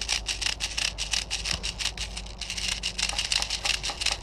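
Airsoft guns firing on full auto: a fast run of sharp clicks and snaps, about eight to ten a second, with a brief lull about two seconds in.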